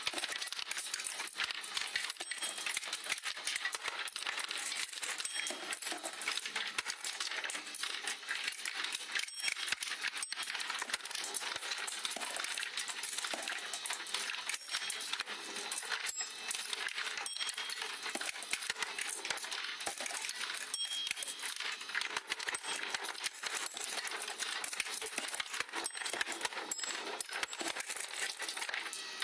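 Marbles rolling and clattering through a powered marble run: a continuous, dense patter of small clicks and knocks as many marbles run down the tracks and drop through the mechanism.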